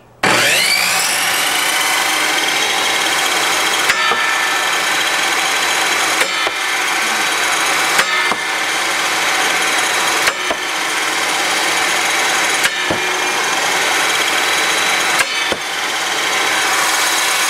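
Table saw switched on, its motor spinning up with a rising whine over about a second, then running steadily at full speed. Several short sharp knocks come through over the run.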